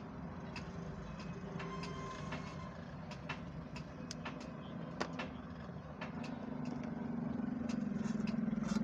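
Scattered light clicks and taps of a plastic keypad phone's housing and LCD being handled, over a steady low background rumble that grows a little louder near the end.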